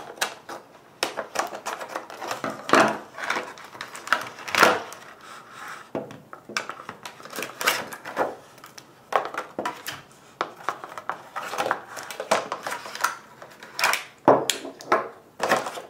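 Scissors snipping through a stiff clear-plastic clamshell blister pack, then the cut plastic crinkled and pulled apart by hand: a run of irregular clicks, snaps and crackling rustles.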